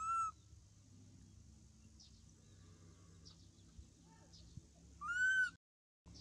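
A baby macaque giving two short, high coo calls, each rising then falling in pitch: one at the start and one about five seconds in. Faint bird chirps in between, and the sound cuts out briefly near the end.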